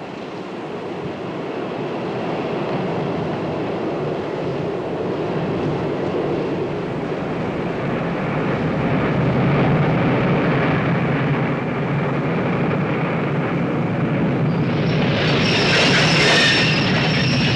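Subway train running on the rails, growing steadily louder. High-pitched wheel squeal sets in near the end.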